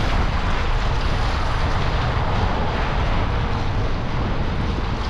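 Steady wind buffeting the camera microphone as a road bicycle is ridden, with an even hiss of tyres on a wet road.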